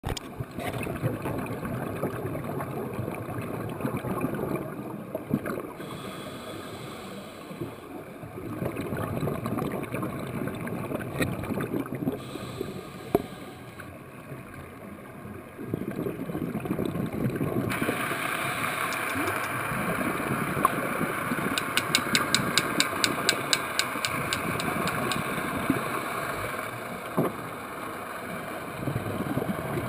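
Underwater sound of scuba divers breathing through regulators: exhaust bubbles bubble and crackle in bursts that swell and fade every few seconds. In the second half a steadier higher hiss joins in, with a run of rapid, evenly spaced ticks lasting a few seconds.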